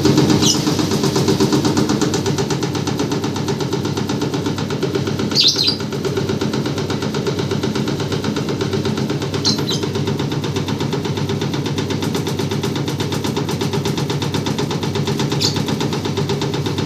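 Automatic leaf-chopping machine running with a steady, fast clatter as leaves are fed through it. A few brief high-pitched hisses stand out over the clatter.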